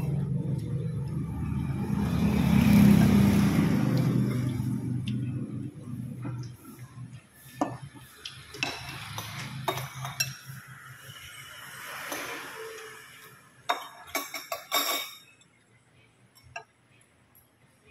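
Metal spoons and forks clinking and scraping against ceramic soup bowls during eating, in scattered sharp clicks. A low steady background noise is loudest in the first few seconds, then fades.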